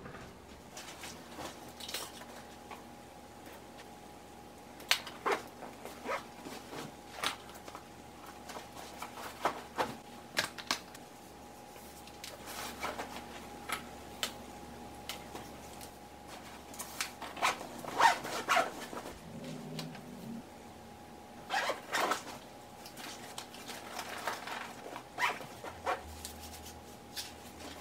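Handling sounds of a fabric backpack being packed: scattered rustles, light knocks and zipper pulls as a charging cable and other items go in, with a faint steady hum underneath.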